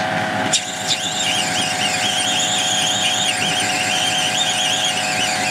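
A small metal lathe running with a large twist drill boring into a red plastic workpiece: a steady machine hum under a high, wavering squeal from the drill cutting, which starts about half a second in and goes on without a break.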